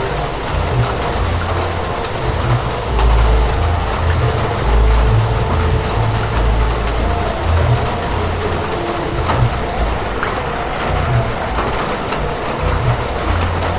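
Heavy rain falling steadily: a dense hiss with a deep, uneven rumble underneath and scattered sharper drop impacts.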